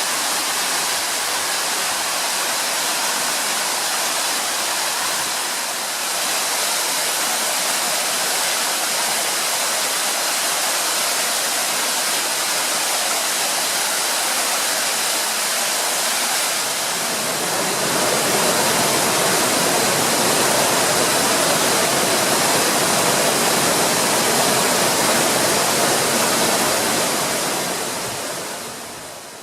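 Amagoi Falls waterfall pouring, a steady rush of falling water. About two-thirds of the way through it gets louder and fuller in the low end, then fades out at the very end.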